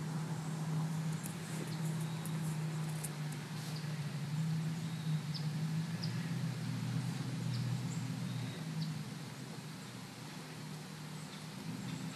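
A raccoon gnawing at a pumpkin's rind, small scattered clicks and scrapes from its teeth, over a steady low hum.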